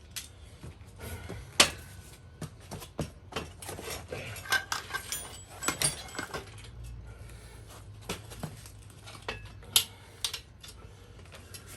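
Scattered metallic clinks and knocks from tools and hardware being handled while a recumbent trike's seat is taken off. The sharpest knocks come about a second and a half in and again near ten seconds.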